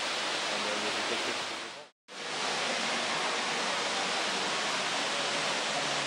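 Steady rushing of falling water from a waterfall, a constant hiss with no clear pattern; it cuts out for a moment about two seconds in and resumes unchanged.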